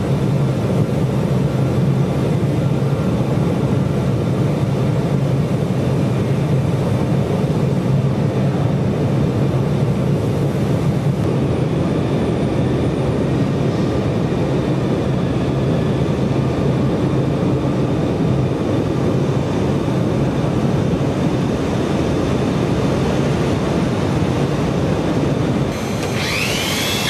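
Steady drone of factory machinery with a constant low hum. Near the end a wavering whine starts, rising and falling in pitch.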